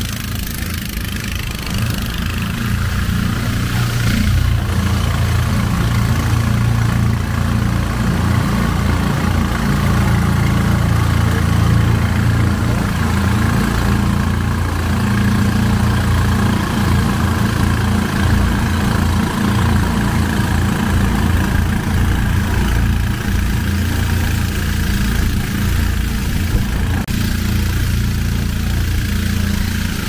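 An engine running steadily with a deep, even drone.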